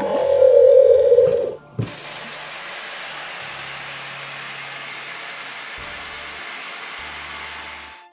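Cartoon sound effect for green slime dissolving: a loud held tone for about a second and a half, then a steady hiss like fizzing or pouring liquid for several seconds, which stops abruptly near the end.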